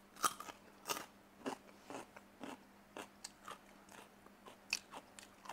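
A raw carrot being bitten and chewed: a run of short, crisp crunches at an uneven pace, loudest just after the start and again near the end.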